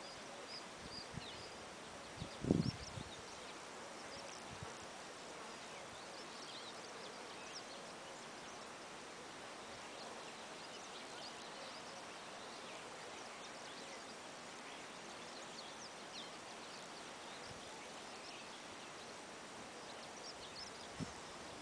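Outdoor ambience: a steady faint hiss with scattered faint high bird chirps. A brief low thump comes about two and a half seconds in.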